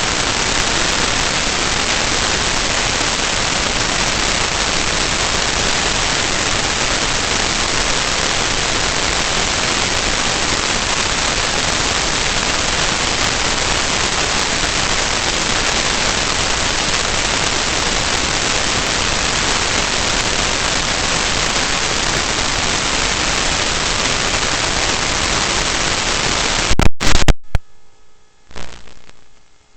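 Loud, steady static hiss like white noise. It cuts off suddenly with a sharp crackle about three seconds before the end, leaving faint irregular sounds.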